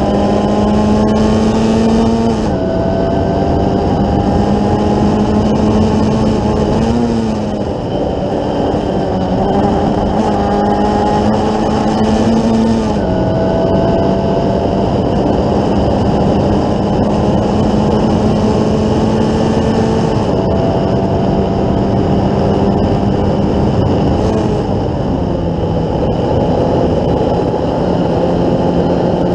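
Formula Ford 1600 race car's Ford Kent 1.6-litre four-cylinder engine at full throttle, heard onboard. The revs climb in each gear and drop sharply at upshifts, four times in all, with a brief lift about seven seconds in. A steady rush of wind and road noise runs underneath.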